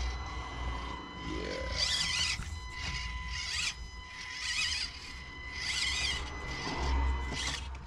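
Axial SCX24 Deadbolt micro crawler's small brushed motor and plastic drivetrain whining in short rasping bursts, about one a second, as the throttle is pulsed to inch the rig up a climb. A short rising whine comes about a second and a half in.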